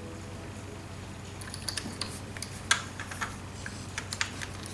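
Light plastic clicks and taps as a large toy Airbus A380 model is handled and turned in the hands, scattered irregularly from about a second and a half in.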